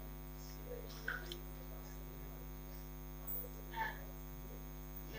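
Steady low electrical mains hum on the recording, with a couple of faint brief sounds about a second in and just before four seconds.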